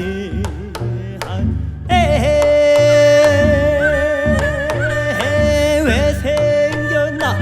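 Korean folk song played in a jazz fusion arrangement. A lead melody bends its pitch, then about two seconds in holds one long note with a wavering pitch until just before the end, over a walking bass line and drum strokes.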